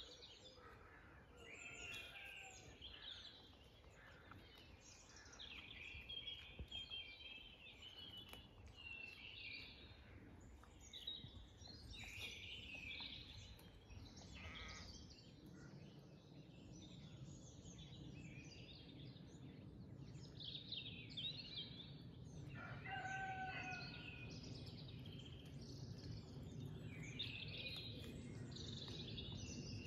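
Faint songbirds singing outdoors, many overlapping chirps and warbled phrases throughout. About three-quarters of the way through, one short, lower call from a larger bird stands out. A low, even background rumble grows in the second half.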